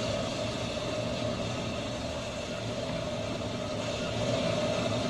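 Handheld heat gun running steadily: an even rushing blow with a steady mid-pitched fan tone and a low hum.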